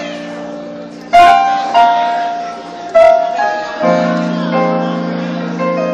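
Solo piano playing: a melody of struck, decaying notes over held low chords, with two loud accented notes about a second in and about three seconds in, and a fresh low chord struck just before four seconds.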